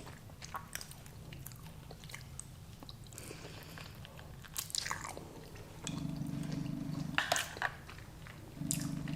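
A person chewing and biting food close to the microphone, with wet mouth clicks and smacks scattered through. A low steady hum comes in twice in the second half.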